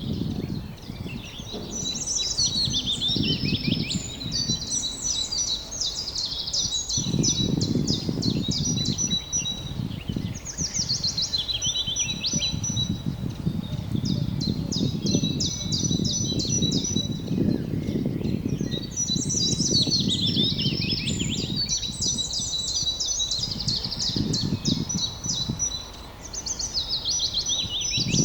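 Songbirds singing outdoors: repeated phrases of quick downward-sweeping notes and trills, starting about every eight or nine seconds, with thin steady high notes between them. Underneath is an uneven low rumbling noise.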